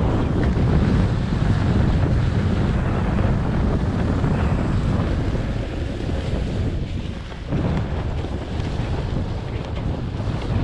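Wind buffeting the GoPro Hero 7 Black's microphone on a snowboard run, with the board sliding and scraping over the snow. It eases briefly about seven seconds in, then picks up again.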